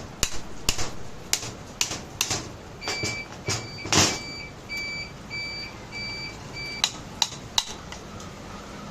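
Sharp clicking, about two clicks a second, typical of a worn outer CV joint on a car's drive axle, with a run of short electronic beeps from the car in the middle.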